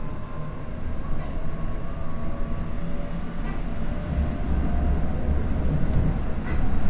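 Chiba New Town Railway 9100 series electric train heard from inside a passenger car: the Toyo Denki GTO VVVF inverter and traction motors give a faint whine that climbs slowly in pitch over a steady rumble of wheels on rail, as the train gathers speed.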